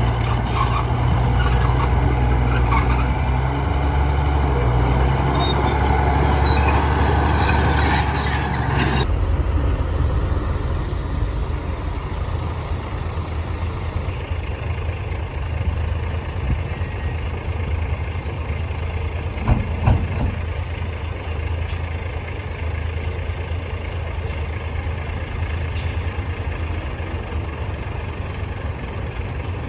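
Heavy diesel engine running, loud with hiss and rattle for about the first nine seconds, then dropping suddenly to a lower, steadier running. A couple of short knocks come about twenty seconds in.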